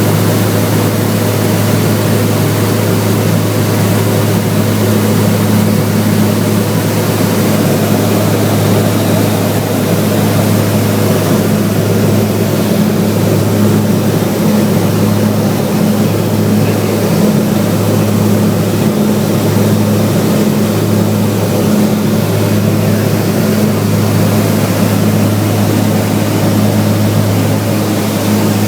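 Steady drone of a Cessna 402B's twin piston engines and propellers in cruise on approach, with a deep hum and a second, higher hum holding an even pitch, heard from inside the cabin.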